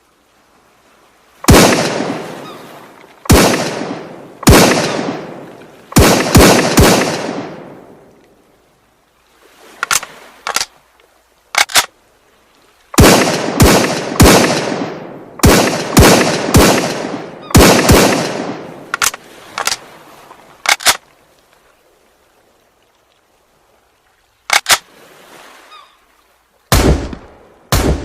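A series of hunting rifle shots, each a sharp crack followed by a long echo that fades over a second or two, some fired in quick succession two or three in a row. Between groups of shots come short sharp clicks without echo.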